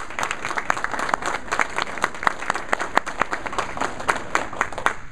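Audience applauding, with individual hand claps standing out, stopping near the end.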